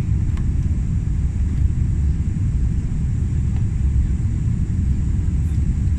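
Cabin noise of an Airbus A350-900 climbing with its Rolls-Royce Trent XWB engines at climb thrust, heard from inside the economy cabin: a steady low rumble with a faint high whine above it.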